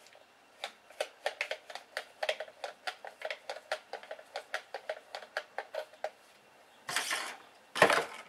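A run of small, sharp mechanical clicks, about four a second for some five seconds, from hands working on a toy drone's handheld transmitter, then two brief rustling bursts near the end.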